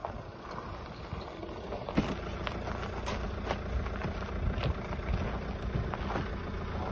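A van's engine running close by, with wind buffeting the microphone and a few short sharp clicks scattered through.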